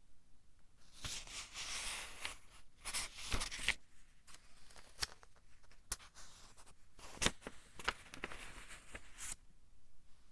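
Pages of a thin-paper book being turned by hand: paper rustling in several strokes, with sharp crisp flicks as each page comes over.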